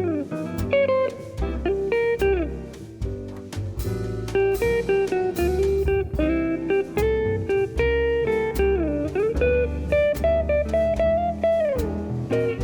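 Background music: an instrumental guitar solo with bent notes over bass and drums.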